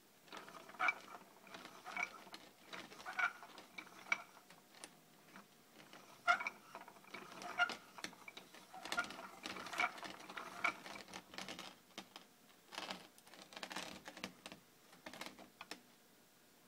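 Wooden automaton's cam mechanism in motion, its parts clicking and squeaking in a rough repeating rhythm, about once a second.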